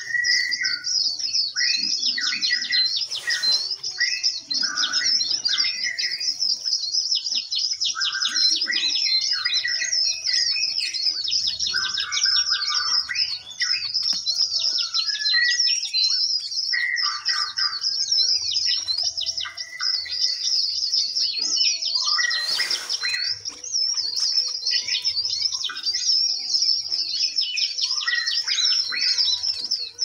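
A chorus of small caged birds chirping and trilling continuously at high pitch, with lower whistled notes mixed in. Two brief rustling noises stand out, about three seconds in and again a little past twenty seconds.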